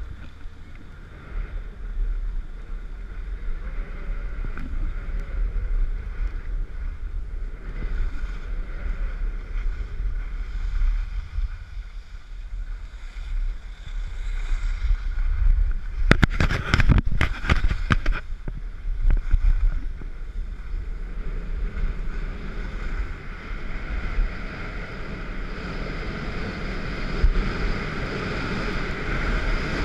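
Wind rumbling on the microphone of a camera carried by a skier moving downhill, with the hiss of skis on packed snow; the rush grows louder toward the end as speed builds. A short cluster of knocks and rattles comes a little past halfway.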